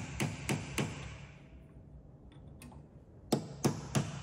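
A hammer tapping an aluminium bar set against a coilover's threaded locking collar, driving the collar tight on the spring perch. Three quick taps, a pause of about two seconds, then three more taps.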